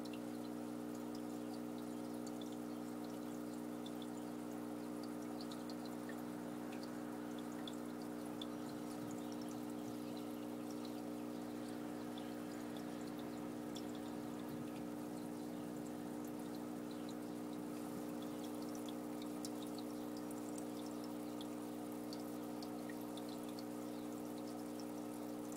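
Aquarium filter running: a steady electric hum under a constant trickle of water, with scattered tiny drips and ticks.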